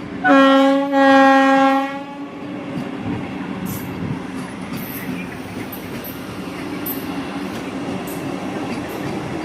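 Vande Bharat express train's horn sounding two blasts, a short one then a longer one of about a second, followed by the steady rumble of the train running past, with light clicks over it.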